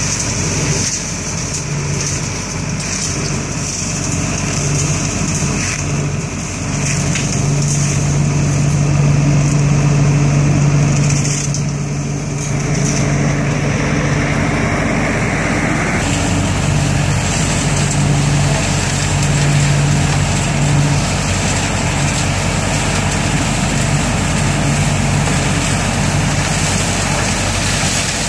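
An ODB 650 trailer-mounted leaf vacuum running steadily, its engine hum under the rush of the fan. From about sixteen seconds in the rush turns sharply hissier.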